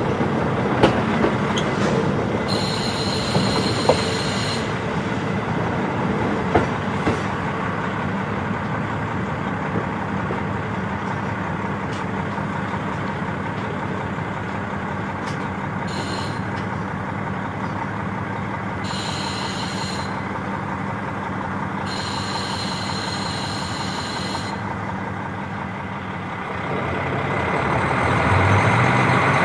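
KiHa 40 diesel railcar under way: the diesel engine drones steadily under the rumble of the wheels on the rails, with a few sharp clicks from the track in the first several seconds. A high hiss comes and goes four times, and near the end the engine and running noise grow louder.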